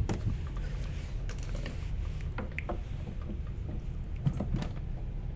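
Scattered light clicks and knocks of parts and tools being handled, over a steady low hum.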